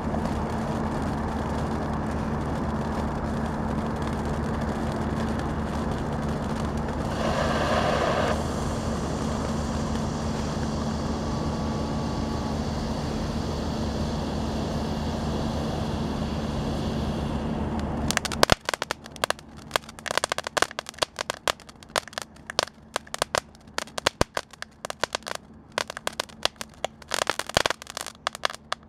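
Phantom Bazooka Torch fountain firework spraying sparks with a steady rushing hiss that swells briefly about seven seconds in. About two-thirds of the way through, the rush stops suddenly and gives way to rapid, irregular crackling pops as it throws crackling stars.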